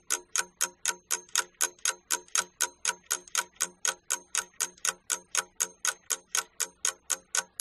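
Ticking-clock sound effect: fast, even ticks, about four to five a second, used as a timer counting off the time given for writing.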